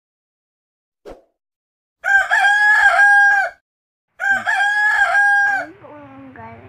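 Rooster crowing twice, two near-identical loud crows about a second and a half long each, after a brief faint swish about a second in.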